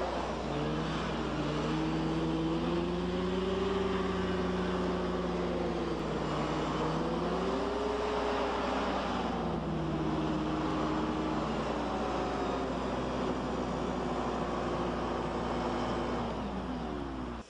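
Hoverguard 700 hovercraft's engine and rear ducted fan running, the pitch rising and falling several times as the throttle changes and dropping just before the end, over a constant low hum.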